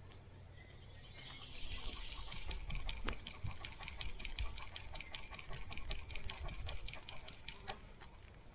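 Close-up footsteps of a small dog trotting along a dirt forest path: a quick, light pattering of many small ticks, with a low rumble underneath.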